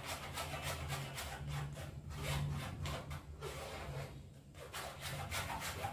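A spoon scraping and pressing thick mango pulp through a mesh strainer, a quick run of rasping strokes, several a second, with a brief pause a little past the middle. A low steady hum runs underneath.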